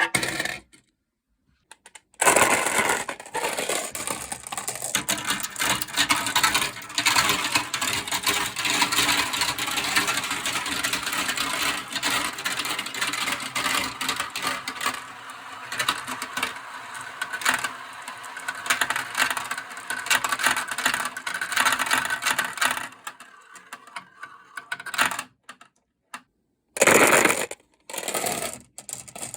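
Marbles rolling and clattering down a marble run, a dense rattle of clicks that lasts about twenty seconds, then breaks off, with one more short burst near the end.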